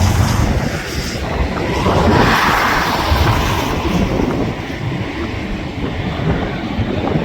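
Jet airliner rumbling by on its landing approach, mixed with gusty wind buffeting the microphone, swelling briefly a couple of seconds in.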